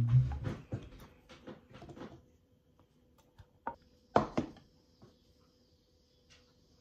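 A dull thump and a run of short scrapes and taps as thick baba ganoush is scraped out of a tipped stainless-steel bowl into a ceramic bowl. Then a few sharp single knocks from a wooden spatula against the bowl, the loudest about four seconds in.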